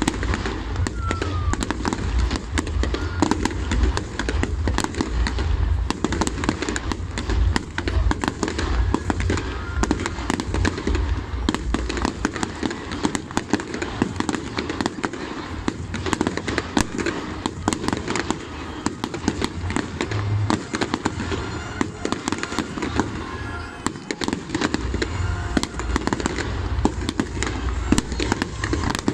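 Fireworks display: rapid, unbroken volleys of bangs and crackling from many shells, comets and crackling stars going off together.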